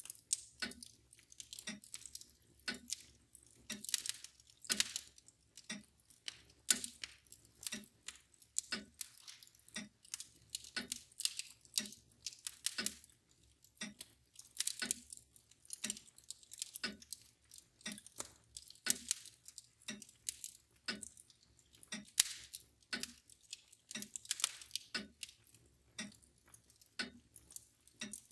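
Wood fire crackling with irregular sharp pops and snaps, over a mantel clock ticking steadily at about two ticks a second.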